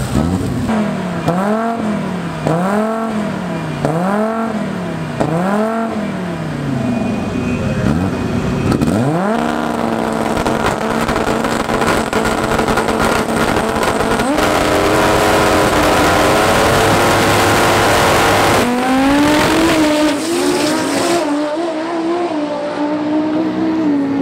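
Audi S2 drag car's turbocharged five-cylinder engine revved in a regular run of rev blips, then held at steady revs that step up higher near the middle. About three-quarters of the way in it launches with a sudden jump in sound, the pitch climbing in steps through gear changes and then fading as the car pulls away.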